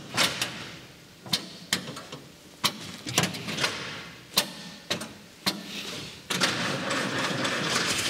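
A series of sharp, irregular clicks and knocks, then from about six seconds in a steady, louder whirr as an old Jeep's engine is cranked on the starter without catching, which the owner thinks is down to a rather short fuel supply from its diaphragm fuel pump.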